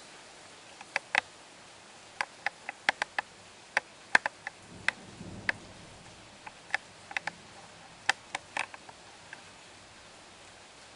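Storm precipitation striking a hard surface close to the microphone in sparse, irregular sharp ticks, over a faint steady hiss. The ticks bunch in two spells and thin out near the end, and a brief low rumble comes about five seconds in.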